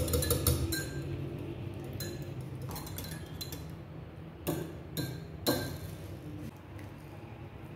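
A wire whisk beating eggs in a small ceramic bowl, its wires clinking against the sides, busiest in the first second and then sparser. A little past the middle come three sharper clinks about half a second apart.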